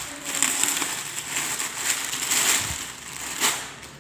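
Plastic packaging crinkling and rustling as a parcel is handled and opened, with one sharper crackle near the end.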